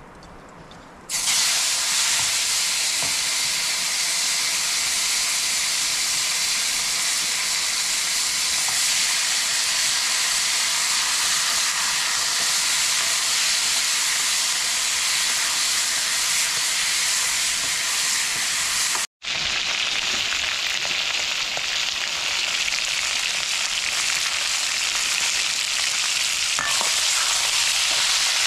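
Raw pork pieces hitting hot oil in a wok, bursting into a loud sizzle about a second in and frying with a steady hiss as they are stirred. The sound cuts out for an instant about two-thirds of the way through.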